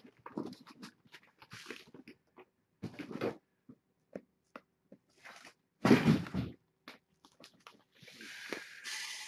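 Irregular small clicks, knocks and rustling, with a louder knock-and-rustle about six seconds in and a hissy stretch of rustling near the end.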